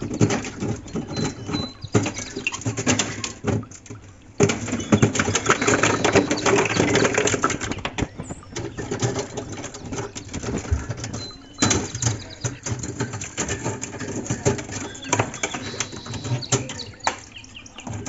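Chunks of built-up freezer frost and ice being broken loose by hand, crunching and clattering onto the freezer's wire shelf, in two louder stretches of dense cracking.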